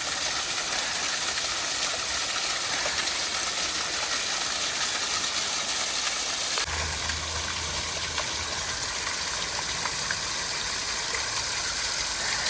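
Small waterfall rushing steadily, a constant hiss of falling water. About halfway through, a steady low rumble joins underneath.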